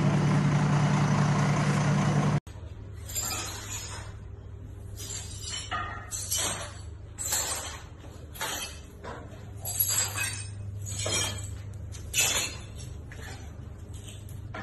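A fire engine's motor running with a steady low rumble, which cuts off suddenly about two and a half seconds in. Then a quieter room with a low steady hum and a string of short, irregular scraping and crunching noises.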